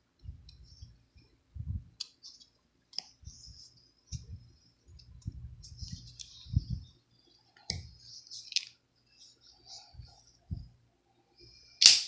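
Folding knife being handled against a wooden log round: scattered light clicks and dull knocks as the blade is worked loose from the wood, then one loud sharp snap near the end as the switchblade's blade flicks open and locks.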